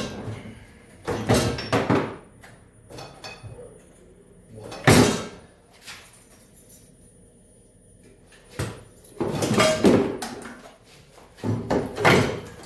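A series of heavy clunks and knocks, a few seconds apart, with lighter rattles between them: metal parts of a snowmobile being shifted and bumped while the engine is worked loose and lifted out.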